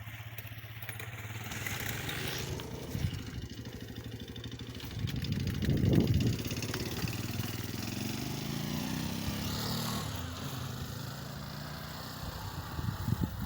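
Motorcycle engine passing by, growing louder to its loudest about six seconds in, then easing off and fading toward the end.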